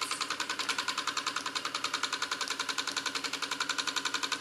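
SEL Junior 1530 toy steam engine running with its single oscillating brass cylinder, giving a rapid, even chuff-and-click about eight or nine times a second. It is short of steam on its small burner and running below its proper pace.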